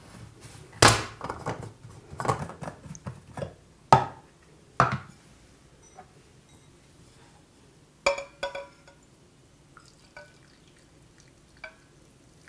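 Stainless-steel food thermos being unscrewed, its lid and cup knocked down onto a wooden board: a run of sharp knocks and scrapes over the first five seconds. About eight seconds in come two ringing clinks of metal and glass as a glass bowl is brought to the thermos, then a few light ticks.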